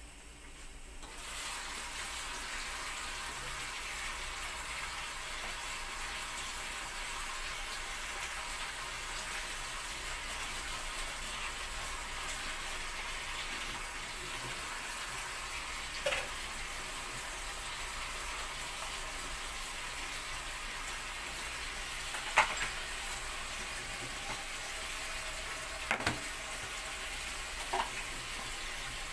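Kitchen tap running steadily into a stainless-steel sink as bok choy and oyster mushrooms are rinsed under it by hand, starting about a second in. Four short knocks against the sink come in the second half.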